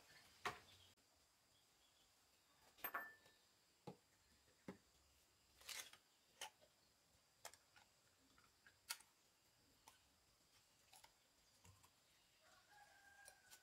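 Near silence broken by faint scattered clicks and taps, and near the end a faint call about a second long that falls slightly in pitch.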